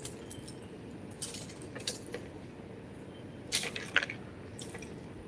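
Plastic clicks and rustles as a toy remote-control car and its clear plastic box are handled, with a few sharper clacks about a second in and again around three and a half to four seconds in.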